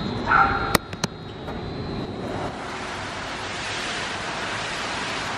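An air mattress with a person lying on it dragged across a carpeted floor: a steady scraping hiss. A brief yelp and two sharp clicks come in the first second.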